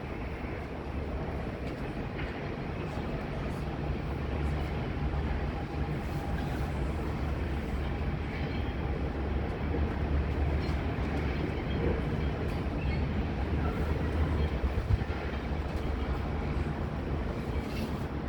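Steady low rumble of a jet airliner's engines, swelling a little toward the middle, mixed with wind buffeting the microphone.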